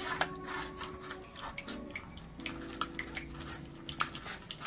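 A metal spoon scraping and tapping in a stainless wire-mesh strainer as thick tamarind sauce is pressed through, with light clicks and a soft trickle of sauce running into the steel pan below.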